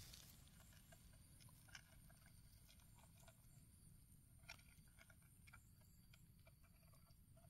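Near silence, with faint scattered ticks and crackles of soil and dry plant litter being handled by hand, the clearest a little before two seconds and about four and a half seconds in.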